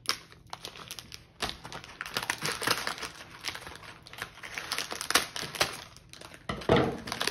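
Plastic sweets bag crinkling and crackling as it is handled and cut open with scissors, with a louder bump near the end.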